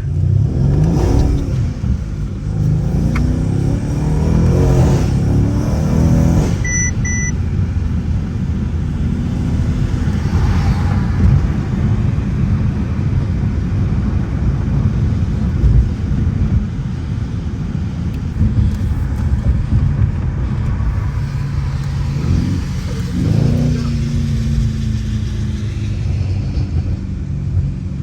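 Mercedes-AMG C63's 4.0-litre twin-turbo V8 accelerating hard, its note rising through several upshifts, over steady road and rain noise. Two short beeps about seven seconds in. Near the end the engine revs up and drops back to a steady drone.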